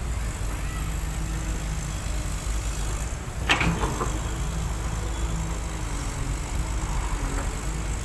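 Caterpillar hydraulic excavator's diesel engine running steadily while its bucket digs into a sand pile, with a single sharp clank about three and a half seconds in.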